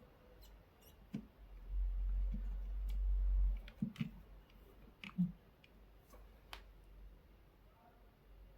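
Scattered small clicks and taps of tools and parts being handled at a workbench during soldering work on a drill battery pack. A low hum, the loudest sound, comes in for about two seconds near the start.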